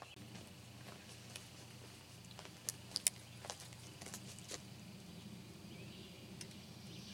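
Cast-iron Dutch oven being hung from a campfire tripod's chain: sharp metal clinks of the wire bail and hook, a quick cluster about three seconds in and a few more over the next second and a half, over a low steady background hum.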